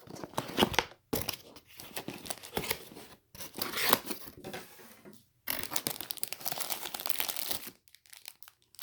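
Packaging being crinkled and torn by hand during unboxing: irregular crackling in stretches with short pauses, densest and steadiest for about two seconds past the middle.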